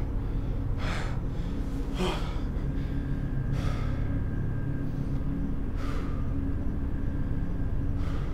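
A person breathing in short, sharp gasps, five of them spread unevenly across the stretch, over a steady low drone.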